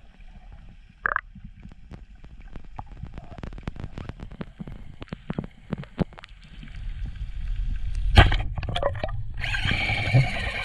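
Underwater speargun shot: scattered clicks and crackles in the water, then a single sharp, loud crack about eight seconds in as the speargun fires. A rushing noise of water follows near the end.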